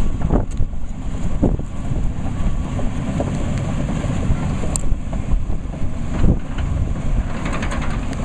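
Diesel engine running steadily with a low rumble, with wind buffeting the microphone and a few brief swells.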